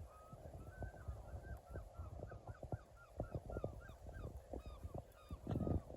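Birds giving a long run of short, honk-like calls, a few every second, with scattered knocks and thumps of handling underneath and a louder thump near the end.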